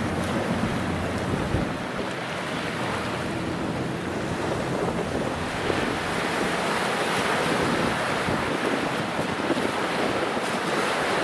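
Wind buffeting the microphone over choppy water, a steady rushing noise that grows a little stronger about halfway through.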